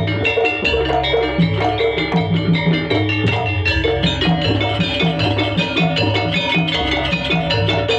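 Javanese jaranan ensemble music played live: drums and tuned gong-chime and metallophone percussion keep a fast, steady, interlocking rhythm over a repeating low bass figure.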